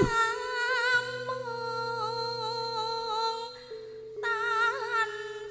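A woman singing long, wavering held notes into a microphone in Javanese style, over a steady held backing note and a low drone. Her voice breaks off about three and a half seconds in and comes back half a second later.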